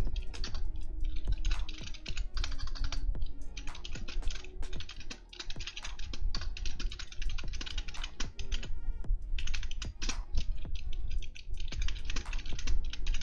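Typing on a computer keyboard: fast runs of keystrokes, with short pauses about five seconds in and again near nine seconds.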